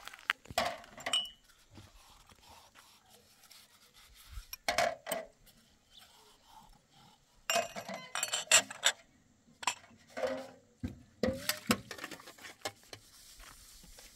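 Several short bursts of clinking and clattering, as of hard objects knocked together.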